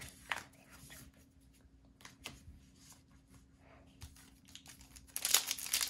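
Trading cards being squared up and set down, making a few soft taps. About five seconds in, a Pokémon booster pack's foil wrapper starts crinkling loudly as it is picked up and handled.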